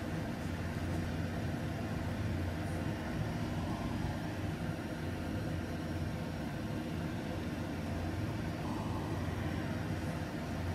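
Steady low hum and rumble that runs on without a break or a change in level.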